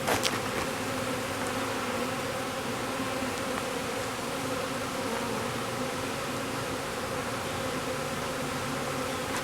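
A swarm of honeybees buzzing steadily, the even hum of many wings. There is one short knock just after the start.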